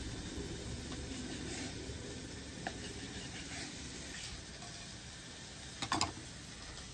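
Faint steady sizzling of chicken cooking on a flat-top griddle, with two quick sharp knocks close together about six seconds in.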